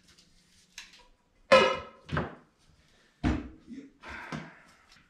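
Things being cleared off a workbench and set down: a ringing metallic clank about one and a half seconds in, a heavy thump about three seconds in, and smaller knocks and rustling between them.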